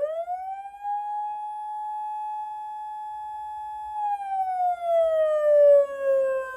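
Electronic siren tone from a PATLITE SAP-50 siren amplifier, played through a Federal Signal Rumbler speaker. It winds up quickly in the first second, holds at its top pitch for about three seconds, then slowly coasts back down: the rise, hold and fall of the siren in manual mode.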